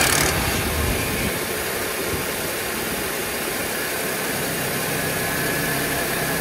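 Audi S4 B8's 3.0 TFSI supercharged V6 running just after start-up, heard from the open engine bay, easing down from the start-up rev in the first second to a steady idle. A faint high steady whine comes up in the second half. It is the first run after the brake booster vacuum pump was resealed.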